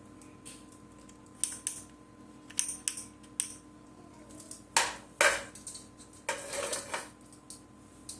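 Handling clicks and taps as a multimeter and its test probes are set up and put to salvaged laptop lithium cells, with a few longer scraping rustles about five seconds in and again near the end.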